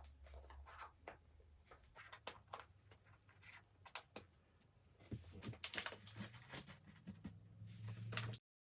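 Faint clicks and light rustling of small items being handled and set in place, busier in the second half, then cut off abruptly near the end.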